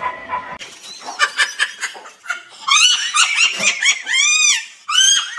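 A woman laughing hard: short, breathy bursts of laughter in the first half that turn into high-pitched, squealing laughs from about halfway through.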